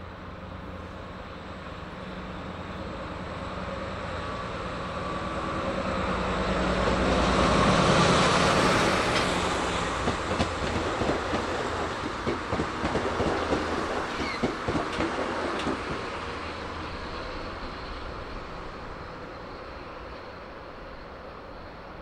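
A JR DE10 diesel-hydraulic locomotive hauls a 103 series electric train past. The locomotive's diesel engine swells to its loudest about eight seconds in. The unpowered 103 series cars follow, their wheels clicking over the rail joints, and the sound fades away toward the end.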